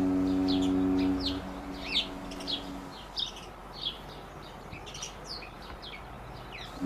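Small birds chirping busily, many short quick chirps that fall in pitch. Over them, a deep, steady horn-like tone fades away over the first second or so and comes back abruptly at the very end.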